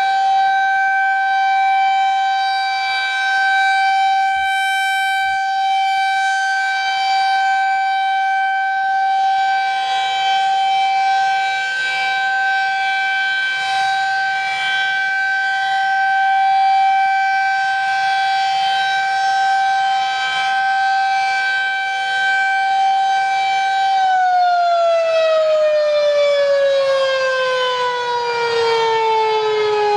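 Federal Signal 2001-SRN electromechanical warning siren sounding a loud, steady single tone on its monthly test. About 24 seconds in, its pitch starts falling steadily as the siren winds down.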